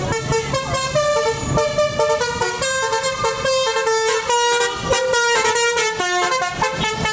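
A bus's 'telolet basuri' multi-tone musical horn playing a quick melody, its notes stepping up and down in pitch one after another.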